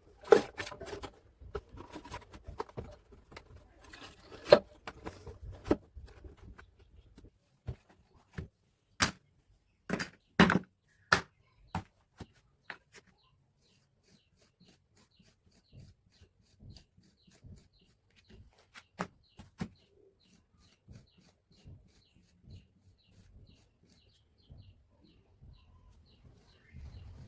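A string of sharp taps and knocks, some loud, of small hard pieces and tools being handled. After about twelve seconds these give way to faint, evenly repeated high chirps like a small bird.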